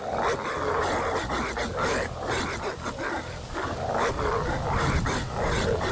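Dogs barking steadily, the barks running into one another without a break.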